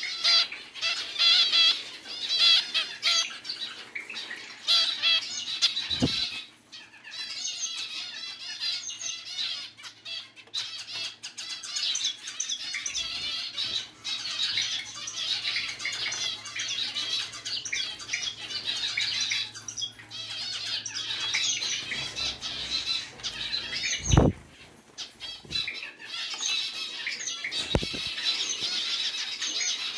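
Zebra finches calling over and over with short nasal beeps, mixed with the splashing and wing flutters of the birds bathing in a pet water fountain's trickling water. Three dull thumps stand out, about 6 seconds in, near 24 seconds (the loudest) and near 28 seconds.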